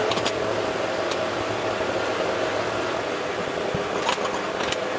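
Steady mechanical hum throughout, with a few light clicks and knocks: one near the start, one about a second in, and two close together near the end.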